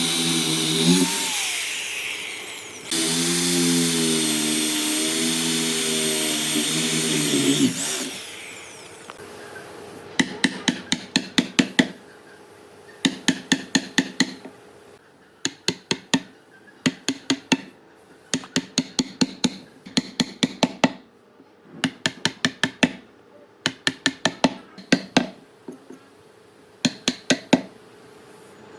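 A woodworking power tool's motor runs with a wavering pitch, stops about a second in and runs again from about three to eight seconds in. Then come rapid sharp knocks in short bursts of several strokes each, with brief pauses between bursts.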